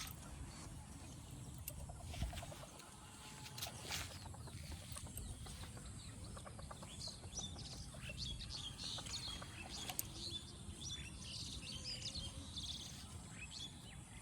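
Small birds chirping in quick, repeated high calls, thickest in the second half, over a steady low rumble, with a few sharp clicks.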